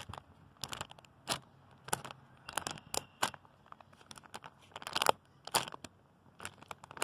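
Plastic squishy-toy packaging crinkling as hands grip and shift it, in short, irregular crackles.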